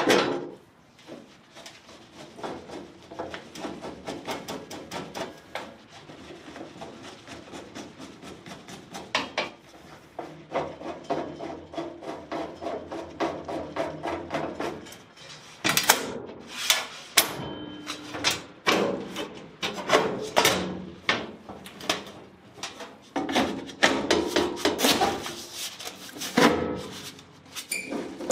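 Sheet-metal furnace panels scraping and knocking as they are slid into the flue section and fitted into place, with a steady run of metal knocks that grows louder and busier about halfway through.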